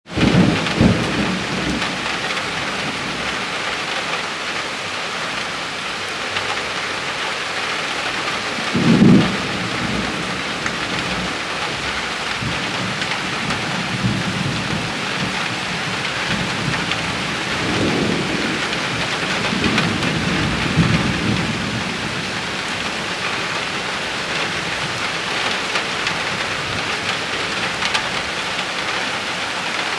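Steady rain pouring down, with several low rolls of thunder: the loudest at the very start and about nine seconds in, more rumbling a little past the halfway point.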